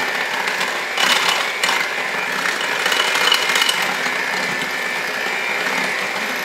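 Cuisinart electric hand mixer running steadily, its beaters whirring through thick cake batter as the flour and milk are mixed in.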